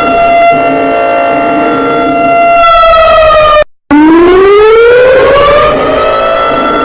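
Emergency alert siren sounding loudly on a steady pitch, then sinking in pitch about three and a half seconds in. It cuts out for a moment, then rises back over about two seconds to its steady pitch and holds.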